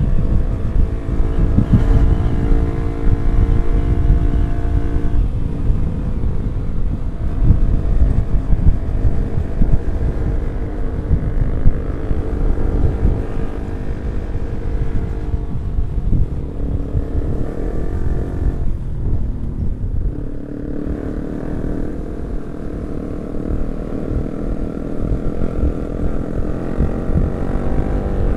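Yamaha R15 V3 155 cc single-cylinder motorcycle engine running while riding, under a heavy low rumble. Its tone holds steady, then shifts several times as speed changes, dipping about 19 seconds in.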